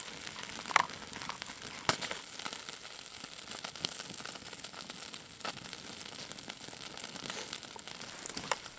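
Stew cooking in a pot over a campfire: a steady crackling sizzle with a few sharp clicks.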